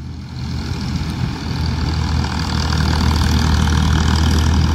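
Farmtrac tractor's diesel engine running steadily as it pulls a straw reaper through wheat stubble, with the reaper's hiss of blown straw over the engine drone. The sound grows louder as the rig approaches, and the tractor is pulling easily.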